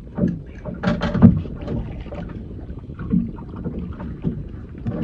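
Water slapping against the hull of a small fishing boat, with irregular knocks and rustles from the rod and gear while a fish is being played.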